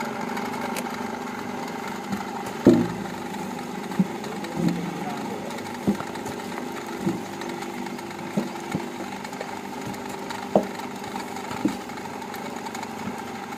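Electric-motor-driven screw extruder making cow-dung logs, running with a steady hum through its belt and pulleys while it pushes out compressed dung. Short knocks come every second or two at irregular intervals.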